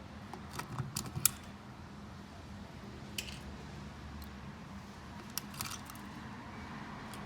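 Scattered small clicks and ticks of needle-nose pliers working at a broken plastic outlet bracket, pulling out the broken pieces. The clicks come in small clusters, the sharpest a little over a second in.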